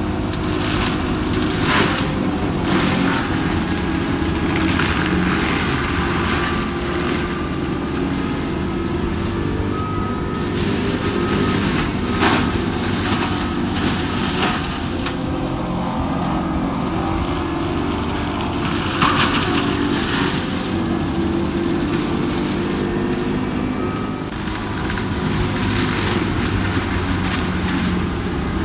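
Engine running steadily throughout, with a few sharp cracks and some short faint beeps.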